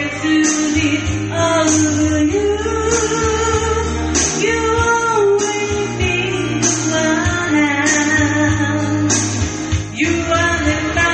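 A pop-rock power ballad sung over a karaoke backing track, with a voice carrying the melody above guitar and a steady drum beat.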